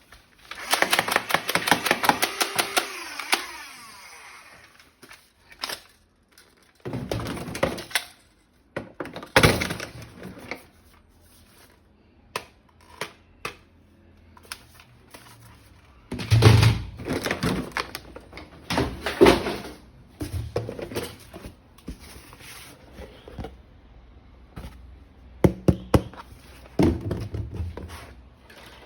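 Plastic M416-style toy gun being handled and worked: a rapid run of clicks, about a dozen a second, in the first few seconds, then scattered clacks and thunks.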